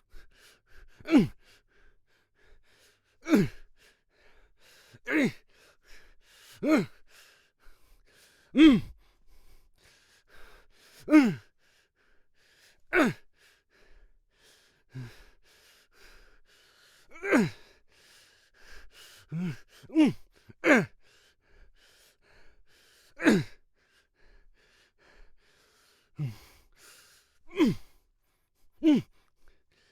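A man's short fight grunts and exertion cries, one after another every second or two, each a quick burst that drops in pitch.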